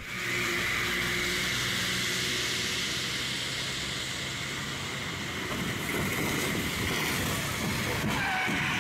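Traffic driving through floodwater on a wet road: a steady hiss of tyres and spray. A truck's engine rumble grows louder near the end as it comes close.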